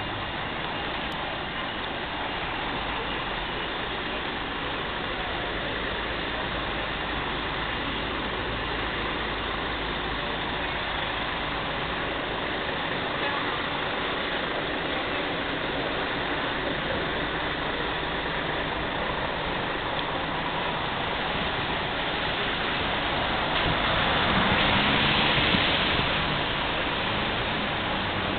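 Wet city street in the rain: a steady hiss of rain and traffic on the wet road. About 24 seconds in, a vehicle passes louder, with engine rumble under a swell of tyre spray.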